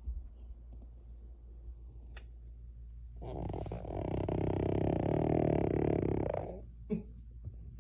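Cavalier King Charles Spaniel snoring in deep sleep. A few seconds of soft breathing give way to one long, rattling snore of about three seconds in the middle, followed by a small snuffle near the end.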